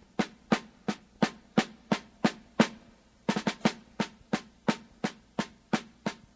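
Solo snare drum playing a marching cadence in the soundtrack music: sharp, evenly spaced strokes about three a second, with a short pause and a quick run of strokes a little past the middle.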